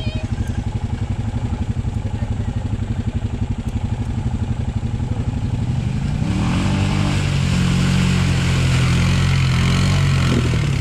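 Single-cylinder Honda ATV engine idling with a steady chug, then revved up about six seconds in and held at higher revs for several seconds before dropping back near the end.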